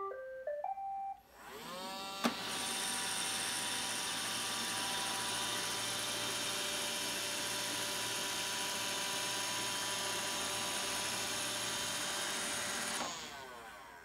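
iRobot Roomba robot vacuum playing a short tune of stepped beeps as the Dock command reaches it, then its motors spinning up with a rising whine and a click. They run steadily with a whine for about ten seconds as it docks, then wind down about a second before the end.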